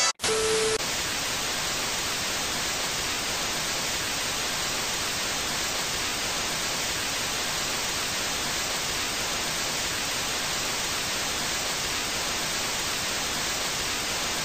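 Analogue television static: a steady, even hiss of white noise that cuts off suddenly at the end. Right at the start, as colour bars come up, a short steady test tone sounds briefly over the hiss.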